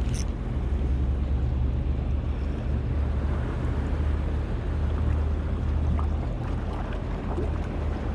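A boat's motor running with a steady low hum, with a haze of wind and water noise over it.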